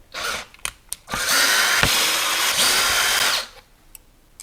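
Small power drill/driver running for about two and a half seconds, backing out a Loctited motor mount screw, after a few light clicks.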